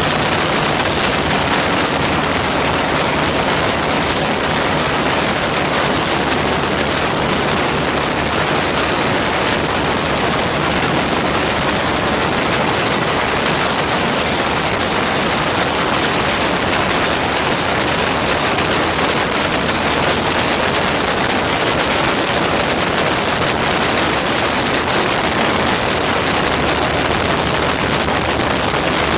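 Steady rush of wind on an ultralight cockpit camera's microphone, mixed with the Hirth F-33 single-cylinder two-stroke engine and propeller running, as the MiniMax comes in to land.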